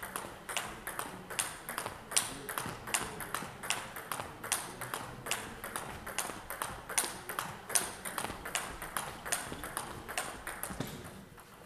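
Table tennis rally: the plastic ball knocks off the rackets and the table in a quick, steady rhythm of about two to three knocks a second. The knocks stop near the end.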